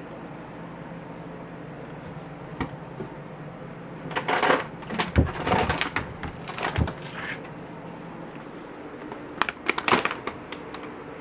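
Handling noises: rustling with a couple of dull thumps midway, then a quick run of sharp crinkles from a foil cat-treat pouch being picked up near the end.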